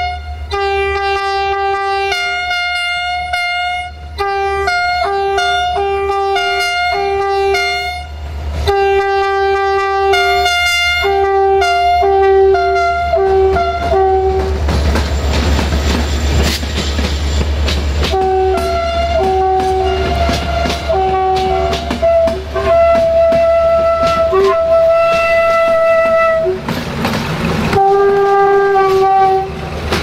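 Diesel locomotive horns blown in a long rhythmic series of short blasts, switching between two or three notes like a tune. For a few seconds about halfway through, the rush and clatter of the train passing over the track takes over. Then the horn blasts start again on slightly different notes.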